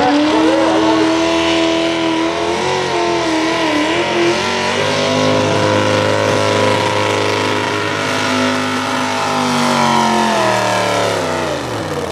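Hot rod V8 pulling tractor's engine running flat out at high revs under load as it drags the weight-transfer sled. The pitch wavers briefly about four seconds in, then holds steady. Near the end the revs fall away as the pull ends.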